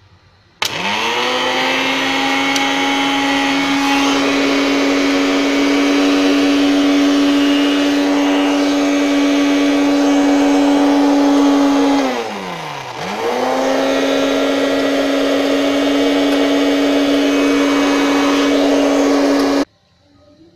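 Electric countertop blender with a jug of watermelon chunks whirring up to speed, running steadily, then briefly spinning down and back up about two-thirds of the way through before cutting off suddenly near the end. The dry chunks are not blending well.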